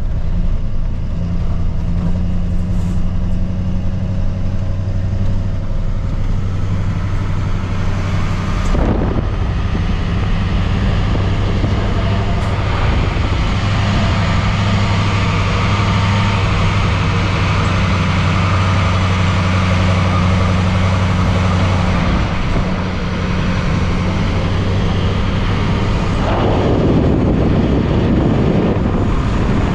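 Kodiak truck driving on a dirt road: a steady low engine drone under tyre and road noise. The road noise swells near the end.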